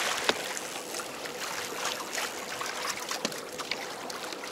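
Sea water splashing and rushing along the hulls of a Hobie Adventure Island sailing kayak as it moves through choppy waves, with scattered small clicks and taps and a faint steady hum underneath.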